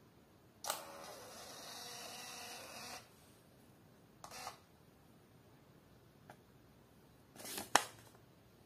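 58 mm portable thermal receipt printer printing a shipping label: a click, then about two seconds of steady motor whirring as the paper feeds out. A short feed burst comes about four seconds in, as the feed button is pressed. Near the end the label is torn off with a sharp rip.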